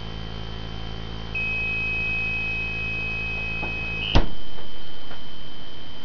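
A 555-timer fridge-door alarm sounds one steady high-pitched tone for about three seconds: the door has been left open, so no IR pulses reach the receiver. A loud thump of the refrigerator door shutting cuts the tone off as the pulses resume.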